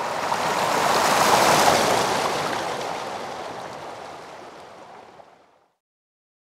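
A rushing noise swell that builds for about a second and a half, then fades away over about four seconds and stops shortly before the end. It is a sound selected by gesture query and played back by the system.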